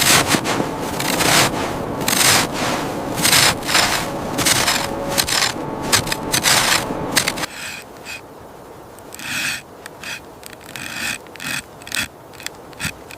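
Rough scraping and rubbing strokes, roughly two a second, as material is worked into the base layer of a survival shelter. About halfway in the background hiss drops away and the strokes become sparser.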